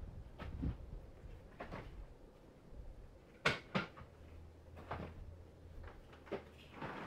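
Scattered knocks and clunks of hard parts being handled, about half a dozen, with the loudest two close together about three and a half seconds in.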